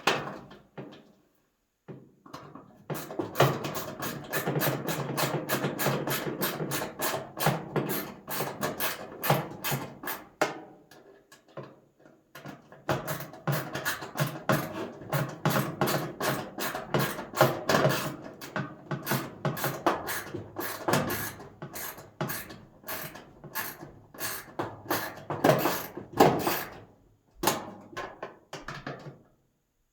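Ratcheting multi-bit screwdriver driving two screws back in, its ratchet clicking rapidly in two long runs with a short pause between them.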